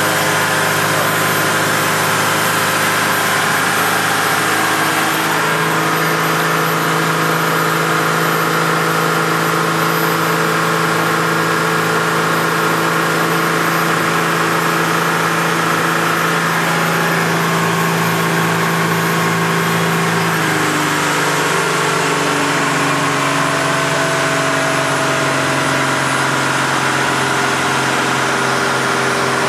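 Mercedes-Benz OM603 inline-six turbodiesel running steadily as it drives the boat under way, its note shifting slightly about five seconds in and again around twenty seconds in.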